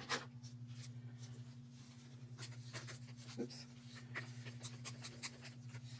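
Faint scattered ticks and light scrapes of a gloved hand handling wooden stir sticks and plastic paint cups, over a steady low hum.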